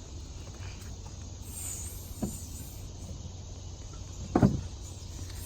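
Steady high chirring of crickets outdoors, with two short low knocks about two and four and a half seconds in, the second louder.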